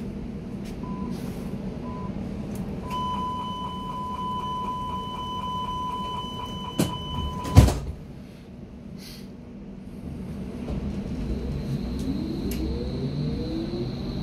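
Hamburg U-Bahn DT5 train's door-closing warning: two short beeps, then a steady warning tone for several seconds, ended by the sliding doors shutting with a loud thud. A few seconds later the train pulls away, with the electric traction motors' whine rising in pitch over the running rumble.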